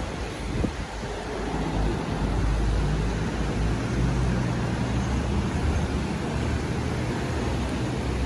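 A vehicle running: a steady low hum with a constant hiss of road and wind noise.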